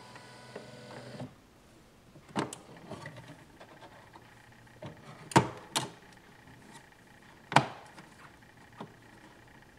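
Dymo DiscPainter's motor running for about a second and then stopping. After that come a series of sharp clacks and knocks as its hinged plastic lid is lifted and shut and the disc is handled and set down, with three loud clacks about halfway through.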